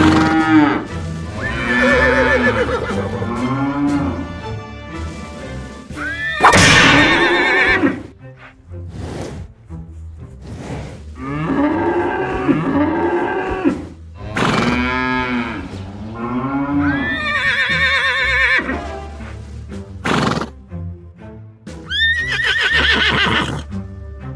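Horse whinnies played as sound effects, about six separate calls a few seconds apart, each a wavering, falling neigh, over background music.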